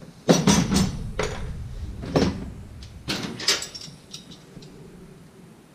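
Metal clanks and rattles of a wrench and other hand tools knocking against the steel frame of a Brunswick A2 pinsetter. The loudest cluster of clatter comes in the first second, followed by four or five single knocks over the next three seconds, and it dies away near the end.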